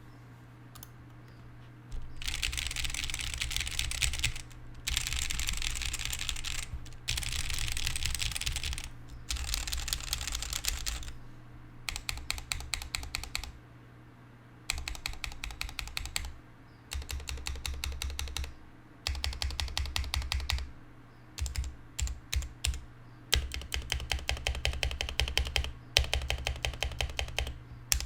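Typing on a Womier K61 60% mechanical keyboard. For the first ten seconds or so it is fast runs of keystrokes on Akko Matcha Green linear switches under stock ABS keycaps. About halfway through come shorter runs of separate, repeated presses on the modifier keys, which carry lubed Glorious Panda tactile switches.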